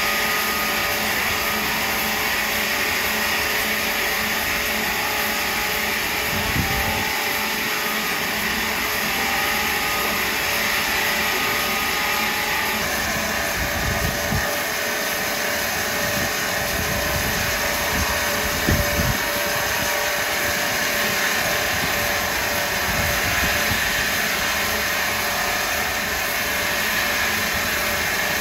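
Power wood saw running steadily with a loud, even machine noise that changes in tone about halfway through.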